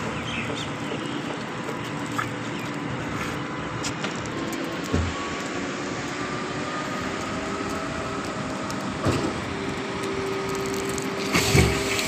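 Concrete pump running in reverse, sucking water and a cleaning sponge back up through the end hose, with a steady rushing noise and three dull thumps a few seconds apart.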